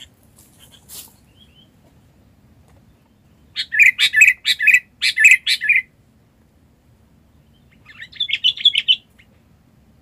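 Sooty-headed bulbul calling: a burst of quick, chirpy notes about three and a half seconds in, lasting about two seconds, and a shorter burst about eight seconds in.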